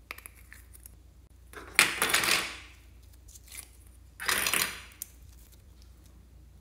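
Clear glitter slime being squeezed and pulled by hand over a tray of foam beads and other slimes: two short bursts of sticky handling noise about two seconds apart, the first the louder, with a few light clicks near the start.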